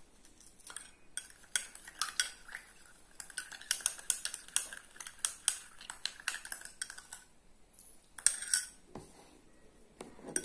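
Steel spoon stirring salt into water in a bowl, clinking and scraping against the bowl's side and bottom in an irregular run of light clicks, with brief pauses. The salt is being dissolved to make brine.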